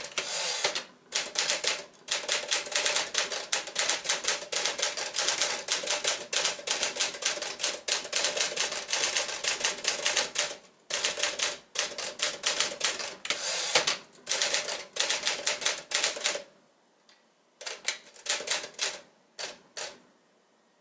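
1957 Smith Corona Clipper manual typewriter being typed on: a fast, steady run of keystrokes broken by a few short pauses, thinning to a handful of scattered strokes near the end.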